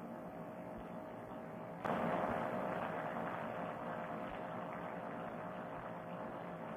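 Paramotor trike engine and wind in flight, heard faintly and muffled through a Bluetooth headset microphone as a steady hum and rush. About two seconds in the level jumps up suddenly, then slowly eases off.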